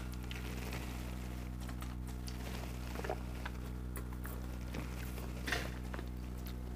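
Quiet room tone: a steady low electrical hum with a few faint clicks, about three and five and a half seconds in.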